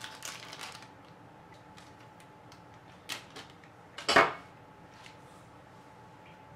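Gloved hands handling a block of butter in a pile of flour on a work surface: faint rustles and small clicks, then a single short thump about four seconds in, as the butter goes down into the flour.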